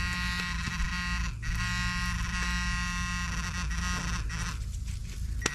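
Garrett Pro-Pointer II handheld pinpointer buzzing continuously in the dug hole, the alert that metal is close to its tip; the buzz breaks off briefly about a second and a half in and again near the end.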